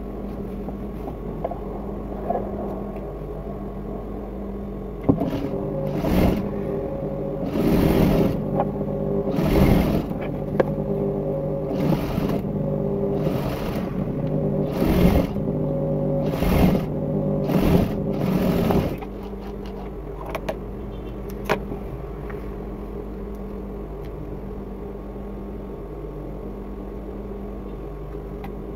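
Industrial lockstitch sewing machine stitching in about ten short runs, one after another, from about five seconds in until about nineteen seconds in. Its motor hums steadily underneath and goes on humming after the stitching stops.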